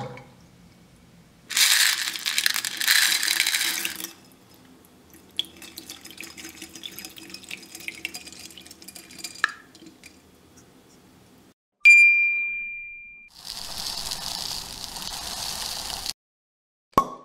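Water pouring into a glass bowl for a couple of seconds, then soft crackling with small pops, a single bright ding that fades out, and another rush of pouring-like noise. Short clicks mark the start and end.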